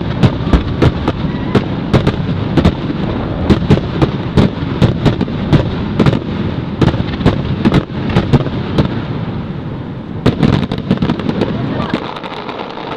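Aerial fireworks bursting in a rapid barrage, sharp bangs several times a second, easing off near the end.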